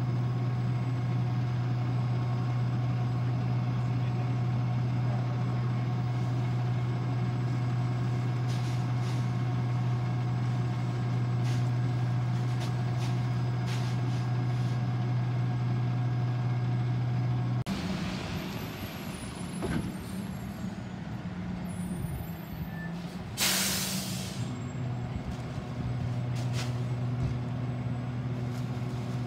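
McNeilus rear-loader garbage truck running with a steady low hum. About 18 seconds in the sound changes abruptly. About 23 seconds in there is a brief loud air-brake hiss, and after it the truck runs on, steady again at a higher note.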